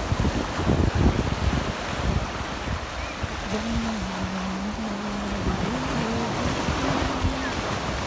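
Sea surf washing onto the beach, with wind buffeting the microphone in gusts during the first couple of seconds. Through the middle, a person's voice holds a few long notes.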